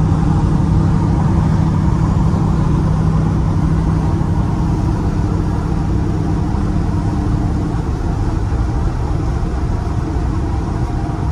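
Ford Coyote 5.0 V8 in a 1967 F100 pickup cruising at road speed, heard from inside the cab with tyre and road noise. The engine's steady drone drops away about eight seconds in.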